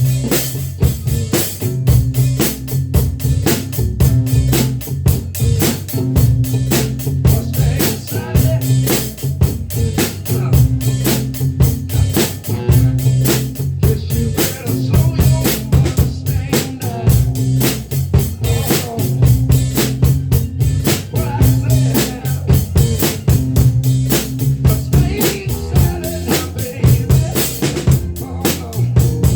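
A drum kit played in a steady groove along with a recorded song whose bass line repeats underneath the dense drum hits.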